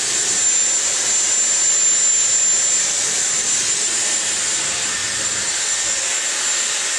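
Dyson hair dryer running steadily, blowing air through hair during a rough dry: a continuous rushing blow with a thin, high-pitched whine.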